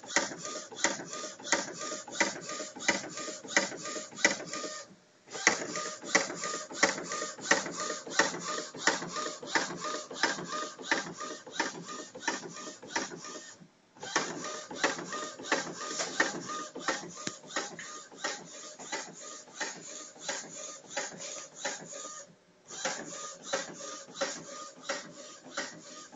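Epson WorkForce 30 inkjet printer, converted to print flatbed, printing: its print-head carriage runs back and forth with a fast, even clatter. The clatter stops briefly three times, near 5, 14 and 22 seconds in.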